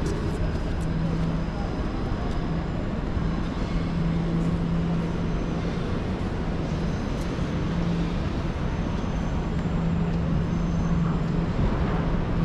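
City traffic noise: a steady wash of road sound with a low, steady engine-like hum that drops out briefly now and then.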